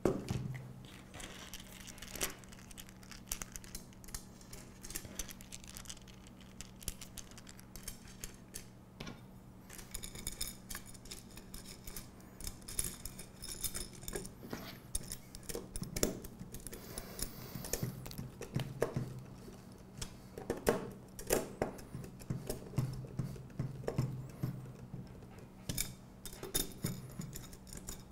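Metal robot parts handled on a work mat: aluminium extrusion, brackets and fasteners knocking and clicking, with a screwdriver working screws near the end. The taps come scattered at first and more often in the second half, over a steady low hum.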